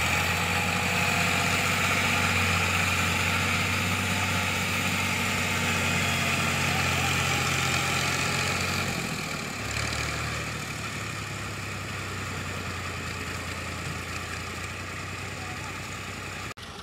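Diesel farm tractor engines idling with a steady low hum; about nine or ten seconds in, the engine note drops and changes and the sound gets a little quieter.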